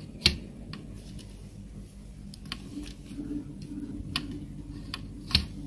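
Scattered clicks and ticks as a dot matrix printer's print-head carriage and toothed drive belt are handled by hand, over a faint steady hum.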